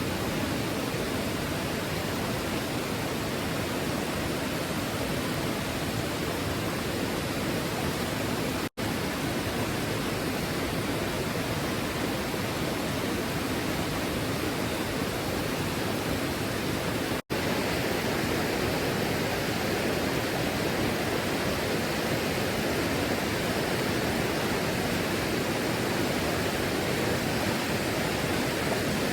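Steady rushing of river water, even throughout, broken twice by a momentary dropout.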